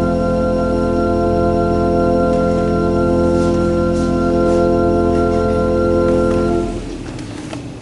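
Organ holding one sustained chord, released about seven seconds in.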